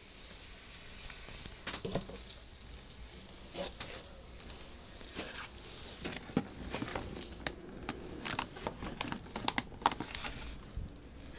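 Unpacking noise: foam packing blocks and a plastic bag being handled in a cardboard box, giving rustling, crinkling and sharp little crackles and taps. These are sparse at first and come thick and fast in the second half.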